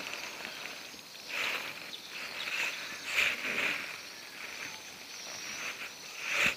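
Insects calling in short, repeated pulses every second or two, over a faint steady high tone.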